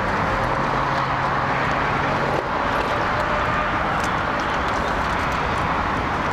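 Steady noise of city road traffic, with a low steady drone for about two seconds near the start.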